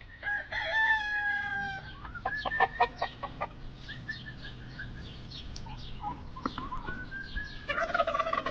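Rooster crowing, a long call about half a second in and another beginning near the end, with chickens clucking in short sharp bursts between.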